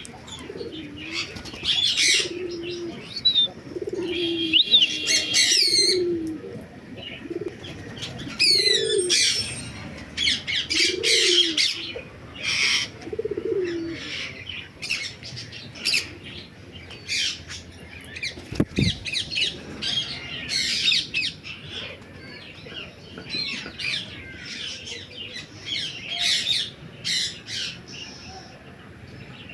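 Aviary birds calling: a run of repeated low coos over roughly the first half, under many short, sharp high chirps and calls that go on throughout.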